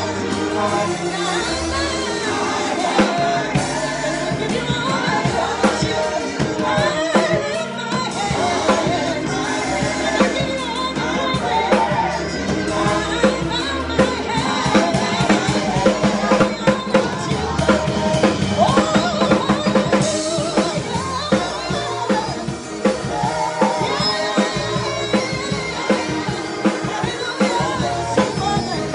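Live gospel praise music: organ with a drum kit and singing voices, playing without a break at a steady beat.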